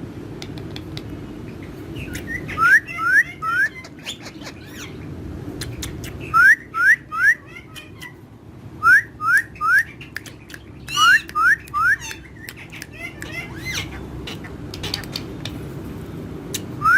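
Parrots calling: short rising whistled chirps in quick runs of three or four, repeated about five times, with scattered sharp clicks between them.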